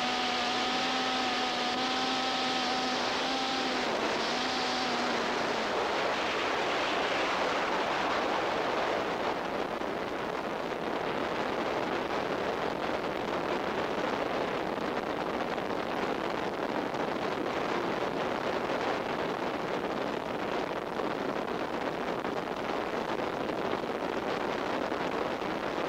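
Free-fall wind rushing over the camera flyer's microphone during a tandem skydive, a steady dense rush. A steady pitched tone sounds along with it for about the first five seconds, drops slightly, then stops.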